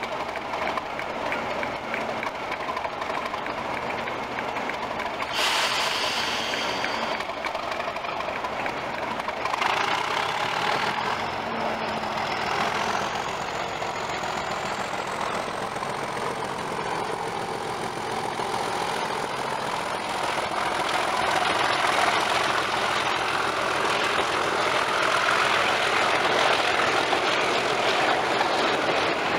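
Class 37 diesel-electric locomotive's turbocharged V12 engine working hard as it hauls a short rake of coaches past, with a thin whistle rising in pitch from about ten seconds in. A burst of air hiss comes about five seconds in. The sound grows louder near the end as the coaches roll by on the rails.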